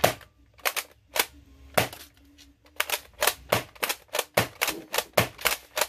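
Nerf Rival Takedown pump-action blaster, fitted with an upgraded spring, being primed and fired at speed: a quick irregular run of sharp plastic clacks and snaps from the pump stroke and shots, many in close pairs.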